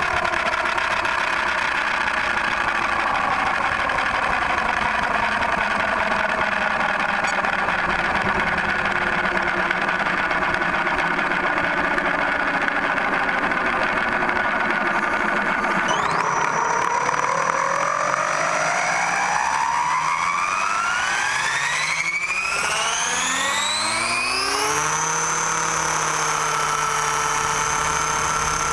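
Radio-controlled helicopter's rotor and motor winding down, the whine sinking slowly in pitch for about sixteen seconds. It then spools up, the whine rising steadily for about nine seconds before holding at a steady high pitch.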